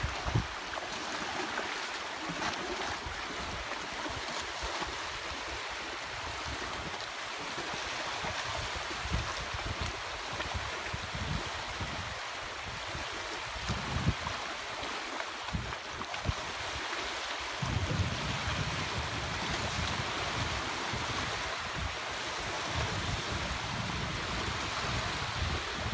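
Small waves washing in shallow lake water, with wind rumbling on the microphone that becomes heavier about two-thirds of the way through.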